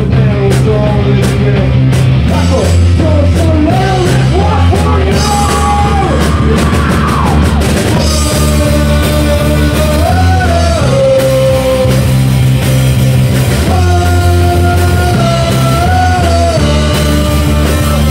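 Rock band playing loud and live: electric guitars, bass and drum kit, with a singer's vocals over them.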